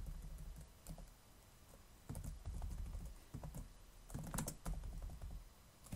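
Typing on a computer keyboard while editing code, in short bursts of key clicks with pauses between.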